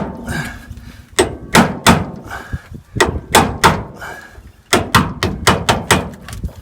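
Hammer blows on a hand impact driver, about a dozen sharp, ringing strikes in three bursts. They are working loose the door hinge retaining screws of a 1966 VW Beetle, screws that are prone to rusted, corroded threads.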